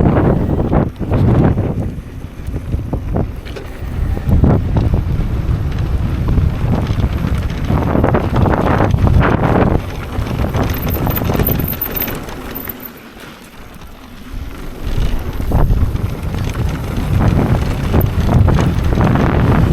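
Strong gusting wind buffeting the microphone with a low rumble, easing into a lull a little past halfway and then picking up again.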